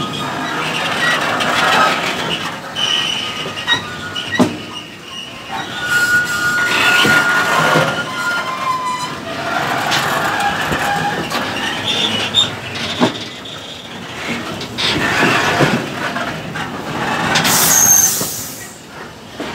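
Fanps hopper wagons of a stone train rolling past at close range: the wheels squeal against the rails, with irregular clicks and knocks from the wheels and running gear, and a sharp high squeal near the end.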